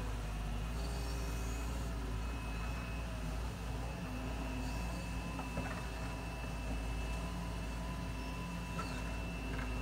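Excavator's diesel engine running steadily under load as the machine digs, a continuous low drone.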